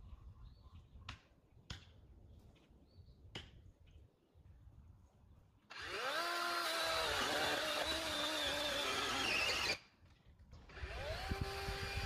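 DeWalt 20V battery chainsaw: a few faint clicks, then a little over halfway in the motor spins up with a rising whine and runs under load, its pitch sagging slightly as it cuts into the trunk. It stops abruptly, then spins up again near the end.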